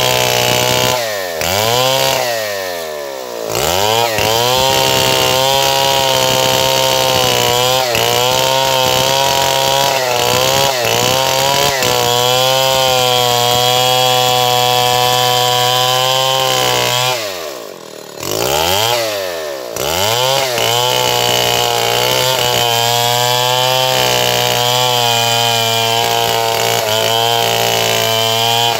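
Stihl 070 two-stroke chainsaw running at high revs. Its engine speed falls away and climbs back twice, once shortly after the start and again a little past halfway.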